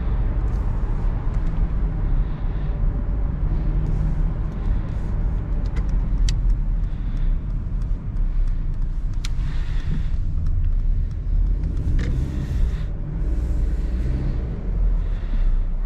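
Mercedes-Benz E220d cabriolet driving with the top down: a steady low rumble of its four-cylinder diesel engine and road, with hiss coming and going higher up and a few sharp clicks.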